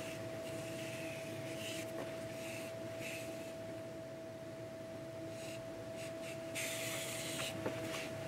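Cotton fabric rustling and rubbing as hands work along the gathered seam of an apron's ruffles, in several short bouts, the loudest about two thirds of the way in. A steady faint tone hums underneath.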